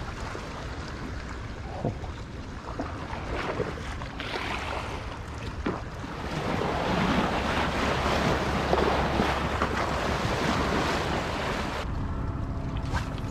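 Wind buffeting the microphone over small waves lapping against the shoreline rocks, getting louder about halfway through. Near the end the sound cuts abruptly to a calmer ambience with a faint steady hum.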